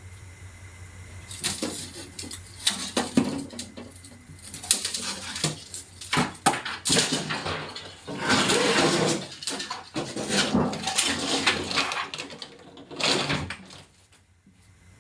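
Knocks, clatters and scraping of hard parts being handled, in irregular bursts that die away about a second before the end.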